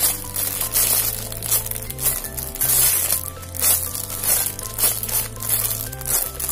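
Background music with a steady beat and a bass line, with the crinkle of a squishy toy's clear plastic bag being squeezed and handled.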